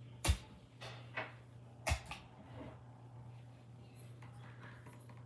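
Five sharp knocks and thumps in the first two seconds, as things are handled and set down in a small room, then faint handling rustles. A steady low hum runs underneath.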